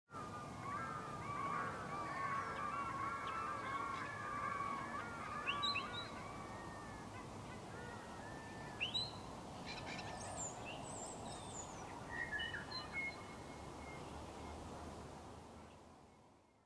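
Birds calling at dawn: many short arching calls overlap for the first five seconds or so, then thin out to scattered higher whistles and chirps over a faint outdoor background. The sound fades out near the end.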